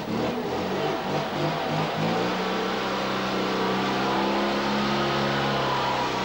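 A small car's engine revving as the car pulls away, its pitch rising and falling for the first couple of seconds, then running steadily.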